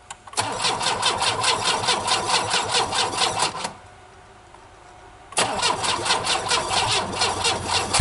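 Pontiac Sunfire's starter cranking its engine in two attempts of about three to four seconds each, with a short pause between, and the engine not catching. It is a cold start in deep cold, with the crankcase filled with sauce instead of oil.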